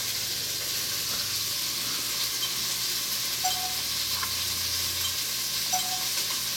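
Steady hiss with a faint low hum under it, and two short faint beeps, one about halfway through and one near the end.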